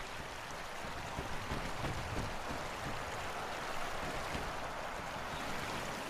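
Steady rush of flowing water, a soft even hiss with no distinct events.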